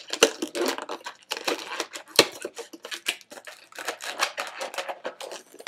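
Inflated latex modelling balloons rubbing and squeaking against each other and the hands as they are twisted and tied off: a quick, irregular run of short squeaks and rubs, one louder than the rest about two seconds in.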